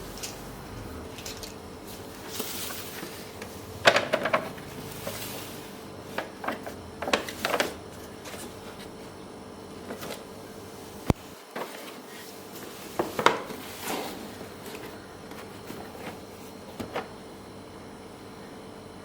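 Handling sounds of a toy RC car being unboxed: scattered knocks, clicks and rustles of the packaging being moved, with one sharp click a little past halfway. A faint steady hum runs underneath.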